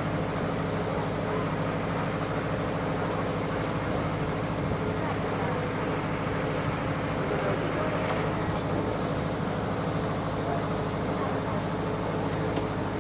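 Farm tractor engine running steadily, pulling a hay wagon, with people talking faintly in the background.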